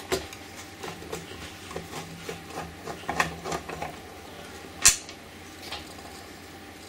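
Screwdriver working small screws out of the speedometer housing of a Fiat 128 instrument cluster: light scraping with scattered small clicks and taps, and one sharp click about five seconds in.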